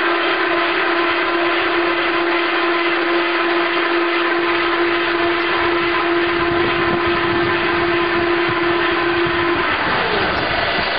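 Spindle veneer peeling lathe and its automatic log feeding device running: steady loud machine noise with a constant whine that stops near the end, giving way to a brief falling tone.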